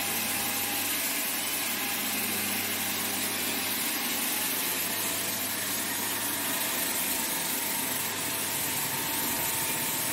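Electric floor-grinding machine running steadily, its rotating stones wet-grinding a Kota marble floor: an even hiss over a low, steady motor hum.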